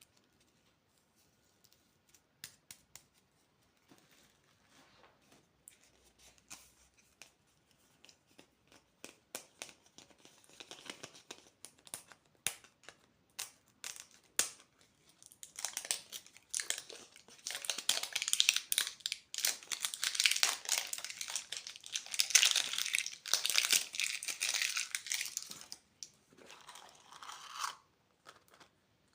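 Candy packaging being opened and handled: scattered small clicks and ticks at first, then tearing and dense crinkling from about halfway through, tapering off near the end.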